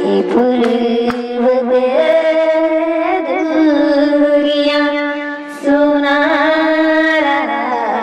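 A woman singing a slow melody into a handheld karaoke microphone, with long held, wavering notes; she breaks off briefly about five and a half seconds in, then carries on.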